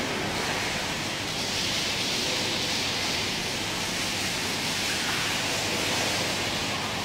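Steady rushing hiss of background noise, brighter in the middle seconds, with no distinct events.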